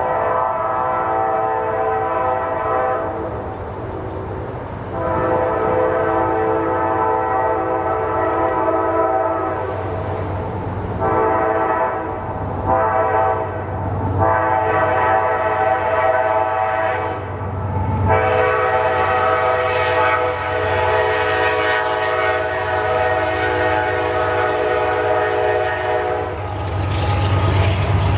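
Diesel freight locomotive's multi-chime air horn sounding a series of long and short blasts, the last held about eight seconds, over the low rumble of the passing train. After the horn stops near the end, the engine and rail noise carry on.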